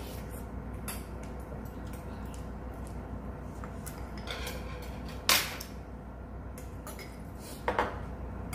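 Metal spoons and chopsticks clinking against bowls and dishes while eating, with one loud clink about five seconds in and two quick clinks near the end, over a steady low hum.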